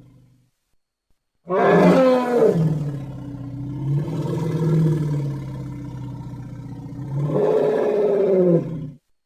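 A cartoon creature's long vocal roar: it starts loud about a second and a half in, holds for several seconds, swells again near the end and then cuts off.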